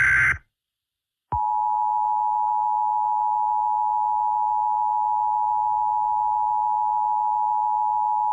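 Emergency Alert System attention signal: a steady two-tone alarm (853 and 960 Hz sounded together) that starts about a second in and holds unchanged at a constant level. Just before it, a harsh screeching EAS digital header burst cuts off, followed by a second of silence.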